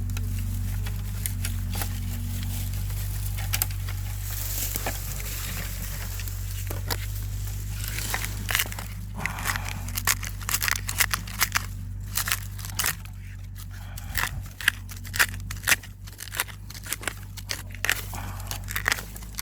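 A tree branch digging into soil, dry leaves and twigs to unearth a deodeok root: irregular crackling, scraping and clicking that grows busier from about eight seconds in. A steady low rumble runs underneath.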